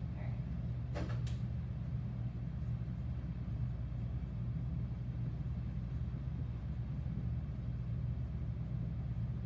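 Steady low hum filling the room, with two brief faint clicks about a second in.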